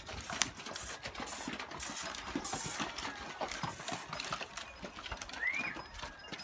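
Pack horses and mules moving about on grass and stones, with scattered hoof knocks, shuffling and rustling. A short rising-and-falling whistle-like call comes about five and a half seconds in.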